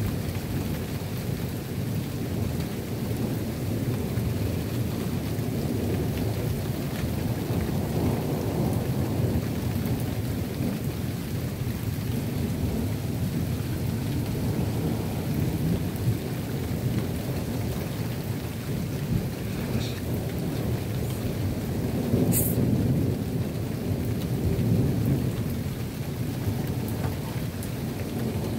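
Rolling thunder rumbling low and continuously, swelling louder a few times and most strongly about two-thirds of the way in, over steady falling rain.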